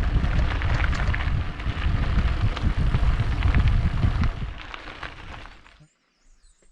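Wind buffeting the microphone with loud, gusty rumbling that dies away about five to six seconds in, leaving faint high chirps near the end.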